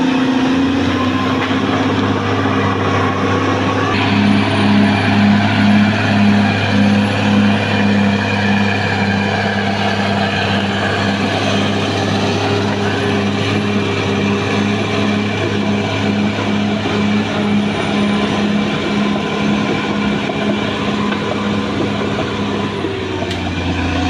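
Caterpillar D6R XL crawler bulldozer's diesel engine running steadily under load as the machine works and tracks along a dirt road. A rhythmic pulsing a little under twice a second runs through most of it.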